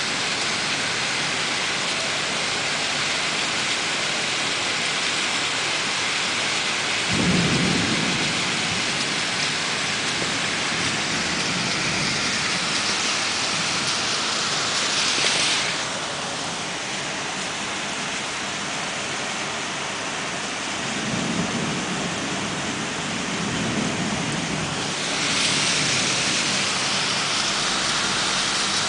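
Heavy rain pouring steadily in a thunderstorm, with a roll of thunder about a quarter of the way in and two more low rumbles in the last third. The rain eases a little around the middle and grows heavier again near the end.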